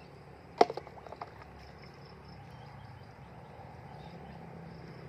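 A sharp smack of a hollow plastic container landing in shallow water among branches about half a second in, followed by a few quick, lighter clicks, then a faint steady background.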